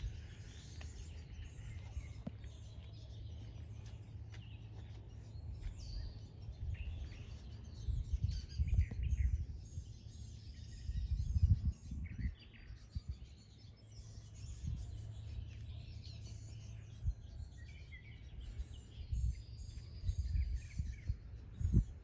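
Small songbirds chirping and singing here and there, over bursts of low rumble on the microphone that are loudest about eight to twelve seconds in and again near the end.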